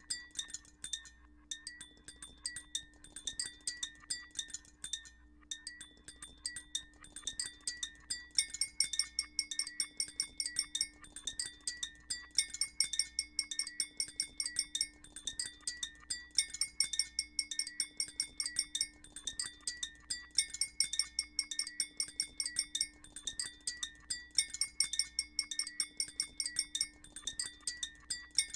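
Synthesized granular sound from a Max/MSP patch: a dense, rapid stream of short, high chime-like pings. A live-looped layer of bell-like tones on top repeats about every four seconds.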